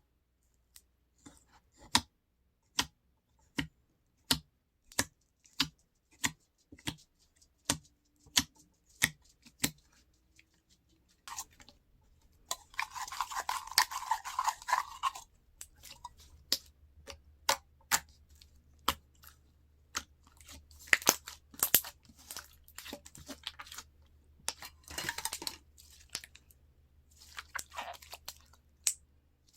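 Slime being handled: a run of sharp, separate clicks or pops at first, then longer bursts of squishing and crackling as it is pressed and stretched.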